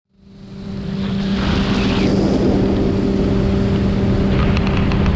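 Motorboat engine running steadily under way, a constant drone, over the rush of water and wind on the microphone. It fades in over about the first second.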